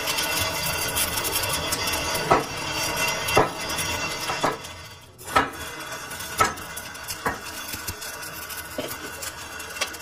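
Metal gearbox parts clanking: about eight sharp metallic knocks, roughly one a second, over a steady background noise that dips about halfway through.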